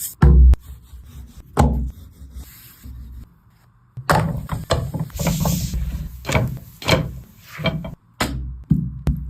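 Heavy thuds and scraping on a wooden surface, then from about four seconds in a rapid, irregular run of knocks and rubbing.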